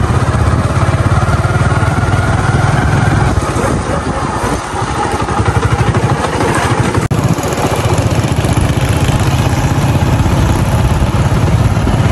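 Motorcycle engine running steadily while riding, its fast, even firing pulses loud and low, with a brief break about seven seconds in.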